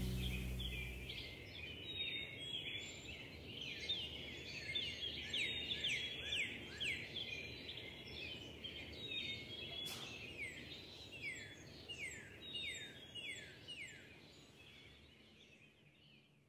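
Dense, overlapping high chirps, each a quick fall in pitch, like a flock of small birds, forming part of the dance's recorded soundscape. They fade out gradually toward near silence by the end.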